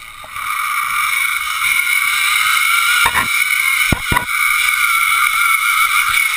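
Zip line trolley's pulley wheels running fast along the cable: a loud, steady high whir that comes in about half a second in and wavers slightly in pitch. A few sharp knocks come around three and four seconds in.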